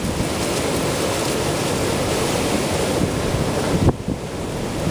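Heavy storm surf of large hurricane waves breaking in a steady wash, with strong wind buffeting the microphone. About four seconds in the wash eases and gusts of wind on the microphone take over.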